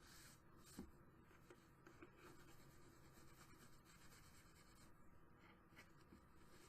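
Near silence with faint rubbing and light handling: a baby wipe wiping stray glue off the paper of a journal cover, with a small tick about a second in.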